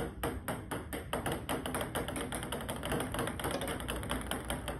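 Ping pong balls bouncing and clicking on a table top: a run of sharp taps, about four a second at first, then faster and overlapping.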